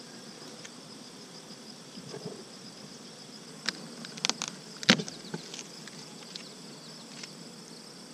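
A few sharp clacks and knocks as a beehive's metal-clad telescoping outer cover is handled and lifted off, the loudest about five seconds in. Under it runs a steady, pulsing high chirring of insects.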